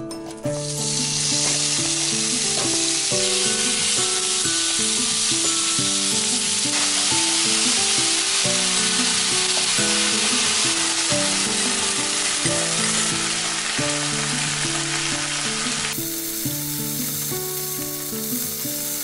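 Food sizzling steadily in a hot frying pan, with soft background music underneath; the sizzle cuts in about half a second in and shifts slightly near the end.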